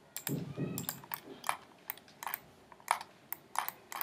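Computer keyboard and mouse clicking: sharp, irregular clicks about three a second, with a brief low murmur near the start.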